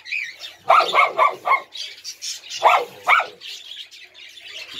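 Small dogs barking: a quick run of four barks about a second in, then two more a little before three seconds.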